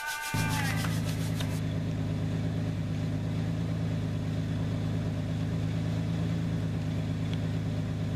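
A vehicle engine idling steadily, coming in abruptly about a third of a second in and holding an even, low hum.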